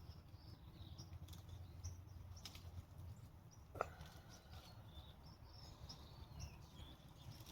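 Near silence: faint birds chirping in the distance over a low, steady rumble, with a single sharp click a little under four seconds in.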